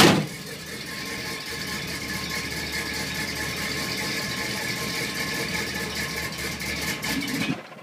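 Chevrolet 350 small-block V8 with a Quadrajet carburettor idling roughly after a cold start, then cutting out suddenly near the end: it stalls. The owner blames stale gas and a partly plugged carburettor. A single loud knock sounds right at the start.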